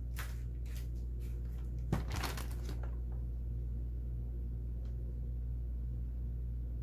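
Handling noise: a few quick rustles and clicks with one sharp knock about two seconds in, then only a steady low hum.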